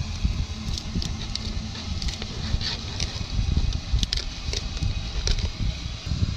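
Fillet knife cutting along a yellow jack, a scattered series of short crisp scrapes and clicks as the blade works through skin, scales and bone, over a low, uneven rumble.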